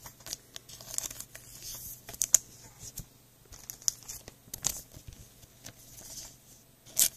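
Trading cards being slid into thin plastic card sleeves: scattered plastic crinkles, soft clicks and swishes, with a louder rustle near the end.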